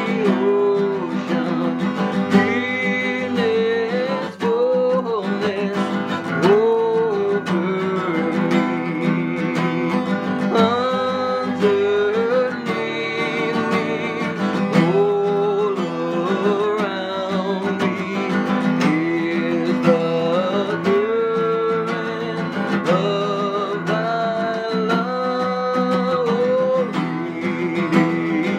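Acoustic guitar playing a slow hymn tune, with a melody of long, wavering held notes over the accompaniment.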